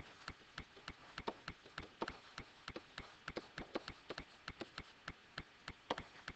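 Faint, rapid ticking: short sharp clicks about three to four times a second, a little uneven in spacing.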